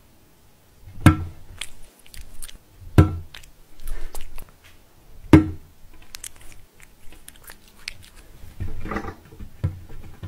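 Cats pawing at a glass tabletop: three loud thumps about a second, three seconds and five and a half seconds in, with lighter taps and clicks between. A cat chewing a treat is heard as well.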